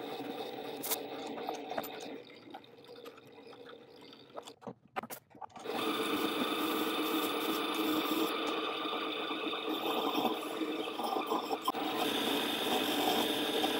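Microlux 7x16 mini lathe running with a steady motor whine while a turning tool cuts the face of a spinning brass disc. The sound drops and breaks off briefly a few times, then comes back louder from about six seconds in.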